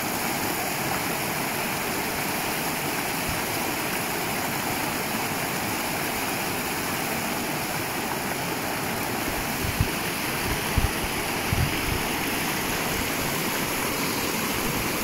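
Small mountain stream rushing steadily over rocks and a little cascade. A few brief low thumps come about two-thirds of the way through.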